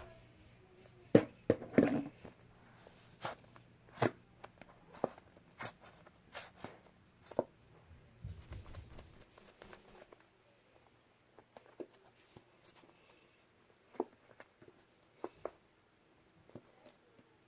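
Slime being kneaded and stretched by hand with lotion worked in, making irregular sticky clicks and pops. They are loudest and thickest about a second or two in and grow sparser later.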